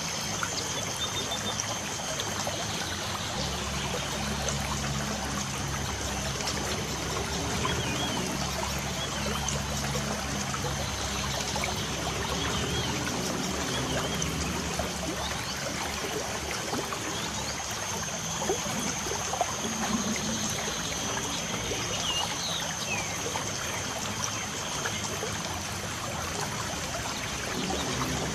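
Light rain falling steadily with a trickle of running water, and a few brief bird chirps now and then.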